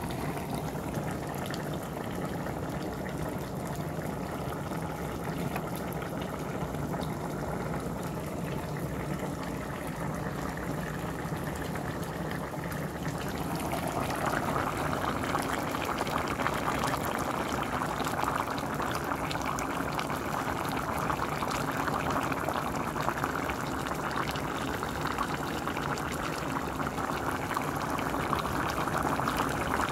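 Pots of green beans and potatoes boiling on a stove: a steady bubbling hiss that grows louder and brighter about halfway through.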